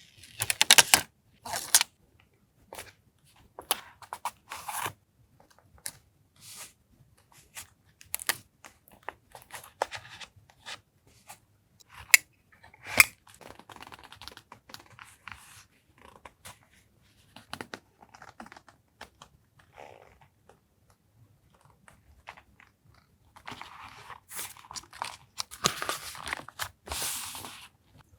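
Paper collage materials being handled on a desk: scattered taps and crinkles of paper, then a few seconds of rustling and tearing paper near the end.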